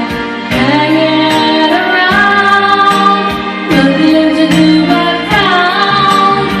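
Music: a female voice holding long, wavering notes over a backing track with a regular beat.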